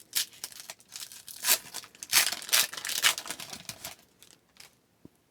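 Wrapper of an Upper Deck hockey card pack being torn open and crinkled: a run of rustling tears that dies away about four seconds in.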